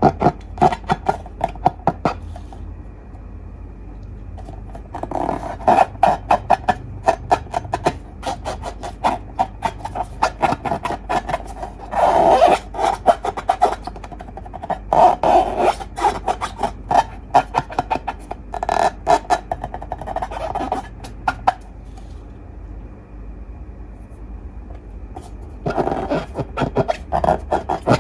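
Slime being squeezed and stretched by hand, making sticky clicking and popping in bursts of a few seconds with short pauses between.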